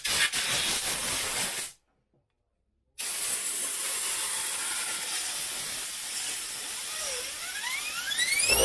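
Compressed air from an air-compressor blow gun hissing as it blows sawdust and debris out of a chainsaw bar's chain groove, in two long blasts with a short break between.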